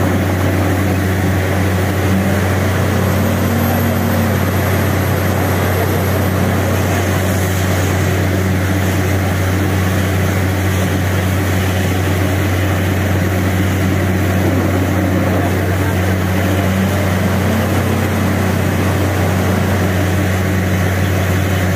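Truck-mounted borewell drilling rig running at a steady heavy drone, with air, water and rock cuttings blowing out of the bore at the wellhead.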